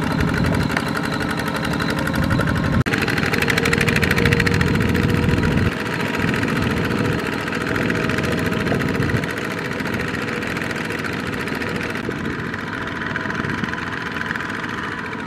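Small single-cylinder diesel engines of two-wheel tractors running, hauling carts loaded with rice sacks that are bogged in deep mud. The sound changes abruptly about three seconds in and grows somewhat lighter in the second half.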